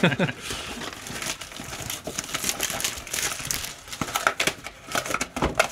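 Plastic wrap crinkling and cardboard packaging rustling as Pokémon TCG Mystery Power Boxes are unwrapped and torn open by hand, with scattered sharp clicks and taps and louder spells about halfway and near the end.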